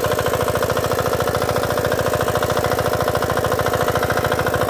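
5 hp air-cooled engine of a walk-behind power weeder (mini tiller) running steadily under load while its tines work the soil, with rapid, even firing pulses.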